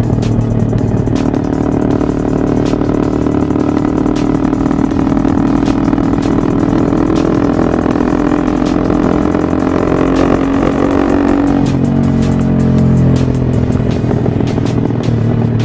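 Background music with a steady beat, with a motorbike engine running at riding speed underneath.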